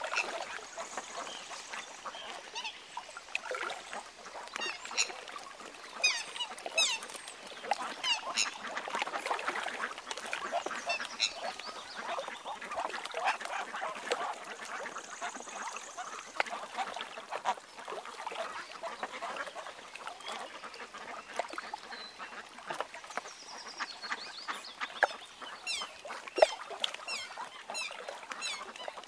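A family of mute swans, adult and brown cygnets, calling on the water: a steady stream of short calls overlapping one another, with thin high rising peeps over them, busiest near the start and again near the end.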